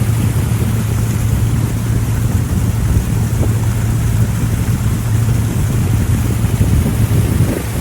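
Pontoon boat's motor running at a steady cruise, a constant low hum, with wind buffeting the microphone.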